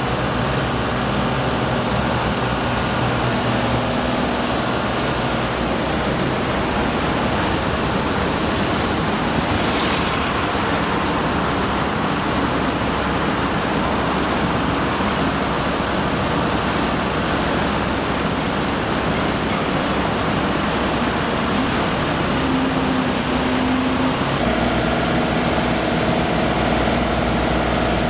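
Steady, loud din of running engines with a constant hum, whose pitch changes about three-quarters of the way through.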